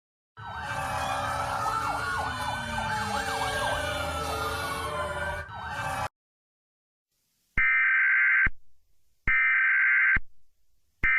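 Several sirens wailing over one another, their pitches gliding up and down over a noisy background, cutting off suddenly about six seconds in. After a pause, an electronic emergency-alert attention tone sounds in long steady beeps of about a second each: two, then a third starting near the end.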